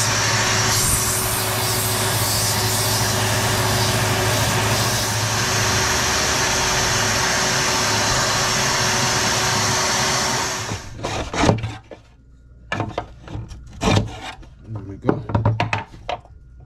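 Small wood lathe running with a low hum while the spinning wooden popper body is sanded by hand, a steady loud hiss of abrasive on wood. About eleven seconds in it stops suddenly, followed by scattered knocks and scrapes as the wooden piece is handled in a plastic mitre box.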